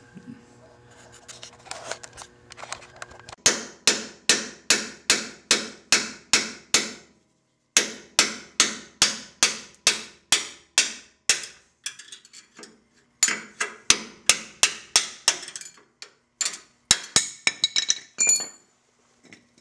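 Hammer striking a punch against the rusted steel outer shell of a control arm bushing to collapse it out of the arm: sharp metallic blows about twice a second in three runs with short pauses, then a quicker run of lighter taps and a short high ring near the end.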